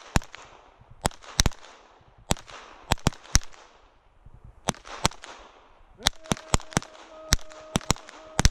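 A string of more than a dozen centrefire pistol shots, fired in quick, irregular succession during a timed series, some only a fraction of a second apart. A steady tone sounds alongside the last shots near the end.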